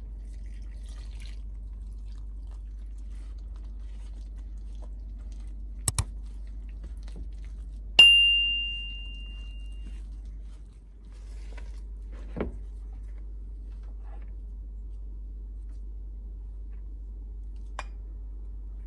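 Kitchen bowls clinking while dough is mixed. One sharp clink about eight seconds in rings out clear and high for about two seconds, with a couple of soft clicks before it and a duller knock after, over a steady low hum.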